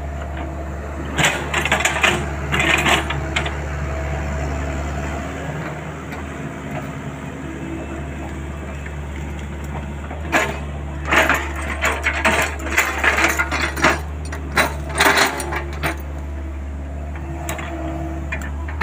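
Compact excavator's diesel engine running steadily while the machine digs, with bursts of clanking and crunching from the bucket and arm working mud and wood, about a second in to three seconds, and again from about ten to sixteen seconds in.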